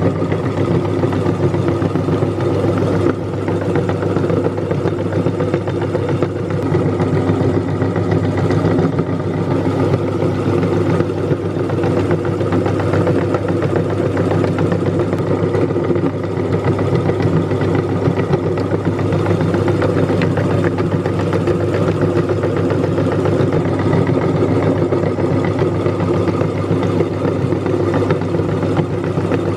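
Meat grinder running steadily, grinding colourful cookies into crumbs: an even machine hum with some clatter.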